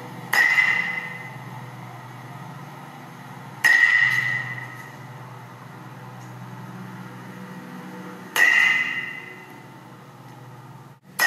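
Baseball bat hitting a ball three times during batting practice, about one swing every four seconds, each a sharp crack with a short ring, over a steady low hum.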